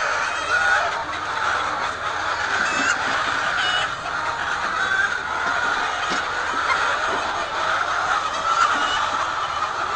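A large flock of laying hens clucking and calling, many birds at once making a steady, dense din of overlapping short calls.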